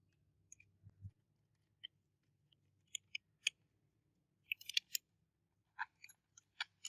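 A run of small sharp clicks and snaps in scattered groups, with a soft low thump about a second in: small model car parts being handled and fitted together.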